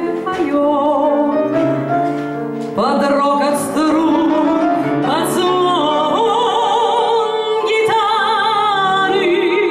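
Female singer performing a Russian romance in a full classical voice over instrumental accompaniment, holding long notes with a wide vibrato.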